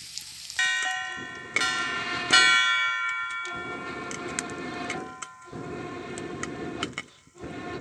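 A stainless steel plate set on a wok as a lid clanks three times and rings like a bell, each ring fading over a second or two. Then maize kernels frying in oil under the lid, sizzling with a few faint ticks.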